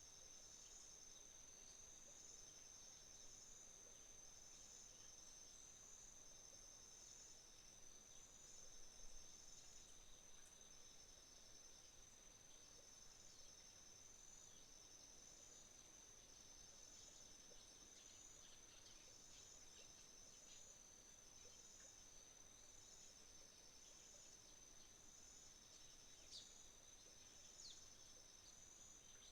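Faint chorus of autumn crickets: a steady high trill with groups of pulsed chirps repeating about once a second. Near the end, a couple of short, sharp bird calls.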